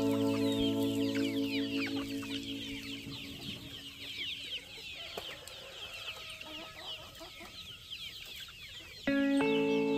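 A flock of free-range chickens calling, many short high chirps overlapping. Music fades out over the first few seconds and starts again abruptly near the end.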